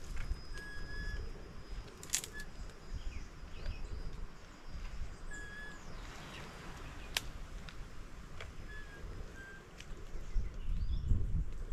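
Birds calling: several short, level whistled notes and a few brief chirps, over a steady low rumble, with two sharp clicks about two and seven seconds in.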